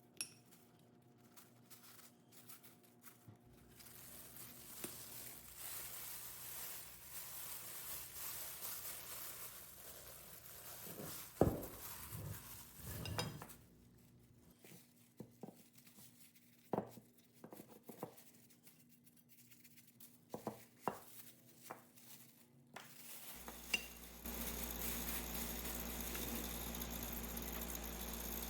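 Small metal parts clinking and knocking as they are handled, after a stretch of steady hiss. Near the end a steady hiss with a low hum starts and keeps going.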